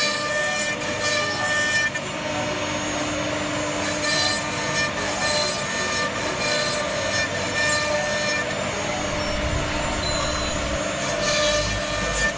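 SDC-1200-4-4 multi-spindle CNC mortising machine cutting mortises: router spindles whine steadily while their end-mill bits rasp through wooden beams.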